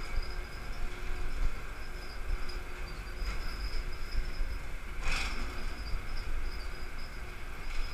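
Container crane's operator cab and trolley machinery running as the cab travels over the ship: a steady low rumble with a thin high-pitched whine that comes and goes, and a single knock about five seconds in.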